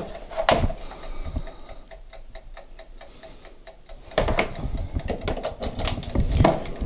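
Air fryer's dial timer ticking rapidly and evenly, about five ticks a second, as the fryer starts. Knocks and clatter from the appliance being handled and plugged in come near the start and again, louder, for the last few seconds.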